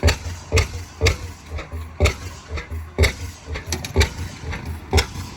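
Old stationary oil field gas engine chugging at slow speed: sharp exhaust pops about once a second, with weaker beats between, over a low rumble.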